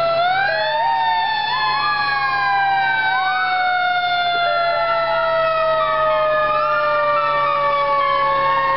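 Several fire truck sirens sounding at once: one winds slowly down in pitch the whole time, while others wail up and down over it.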